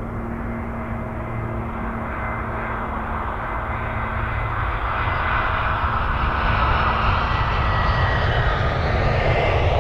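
Airbus A320neo's twin Pratt & Whitney PW1100G geared-turbofan engines at low approach power as the airliner comes in to land, growing steadily louder as it closes in, with a thin whine over the engine noise.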